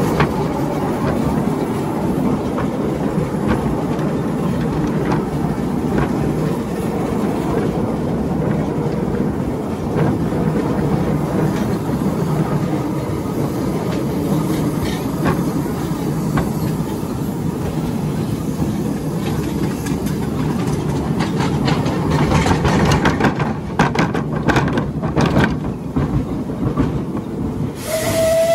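Ride-on miniature steam railway train running along its track: a steady rumble and clatter of wheels on rail, with a run of sharp clicks a few seconds before the end. Right at the end the locomotive's steam whistle starts, one steady note.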